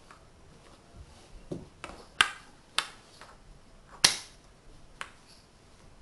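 Magnetic wooden building blocks clicking together as they are stacked into a tower: several sharp wooden clicks at irregular intervals, the two loudest about two and four seconds in.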